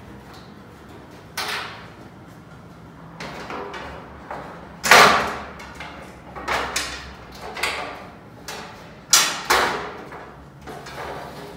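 Metal gondola shelf knocking and scraping against its angled steel brackets and pegboard back panel as it is lowered into place. One sharp knock about five seconds in is the loudest, with several smaller knocks after it.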